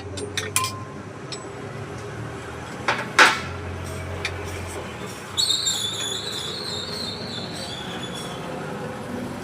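Metal scooter engine parts and tools clinking and knocking during reassembly, with a loud knock about three seconds in, then a high squeak lasting a couple of seconds.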